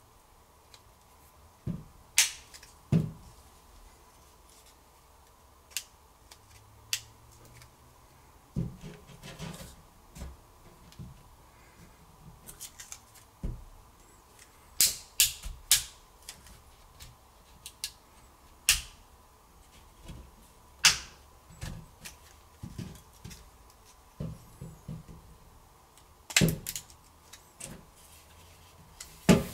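Irregular sharp plastic clicks and snaps as a plastic pry pick is worked around a Samsung Galaxy A51's edge, popping open the catches that hold the plastic back frame to the mid frame.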